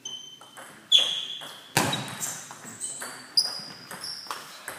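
Table tennis rally: a celluloid-type ball clicking sharply off rubber paddles and the table about every half to one second, each hit ringing briefly and echoing in a sports hall.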